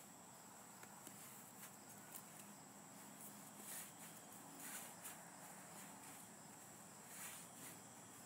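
Near silence: a faint, steady high insect trill, with a few soft rustles of nylon hammock fabric being stuffed into its stuff sack.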